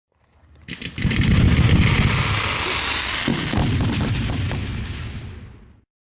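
Aerial fireworks going off in rapid succession, a dense barrage of booms and crackling bursts. It swells in over the first second and stops abruptly near the end.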